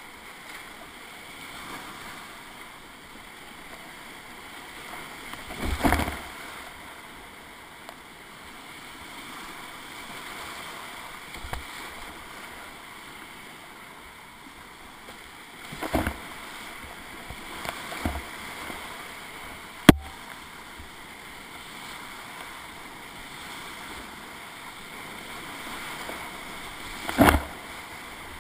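Whitewater rapids rushing steadily around a kayak, with a few short louder splashes as waves and paddle strokes hit the boat, and one sharp click about two-thirds of the way through.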